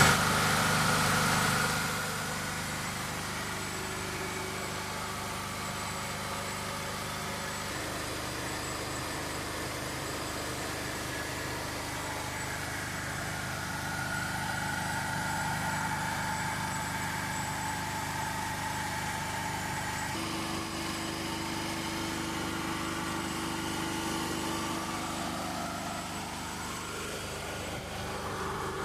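Generator set's engine running steadily, louder for the first two seconds and then settling, its steady hum shifting pitch a couple of times.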